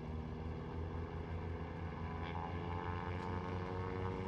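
Aircraft engine running steadily, a low hum with a slowly rising pitch as it grows gradually louder.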